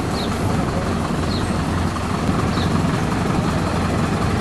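Vehicle engine idling steadily, with a faint short high chirp repeating about once a second.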